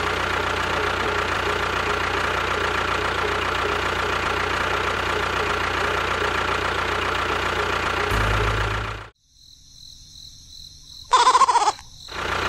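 Small engine of a homemade mini tractor running steadily, then cutting off suddenly about nine seconds in. Near the end comes a brief loud sound with a wavering tone.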